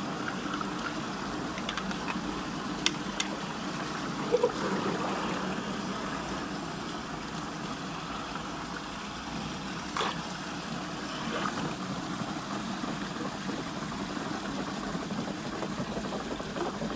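Water swirling steadily in a whirlpool draining through a hole, with a steady low hum beneath and a few short sharp clicks and knocks, about three, four and ten seconds in, as a plastic toy truck is handled in the water.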